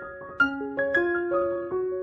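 Background piano music: a light melody of separate notes, each struck crisply and then fading.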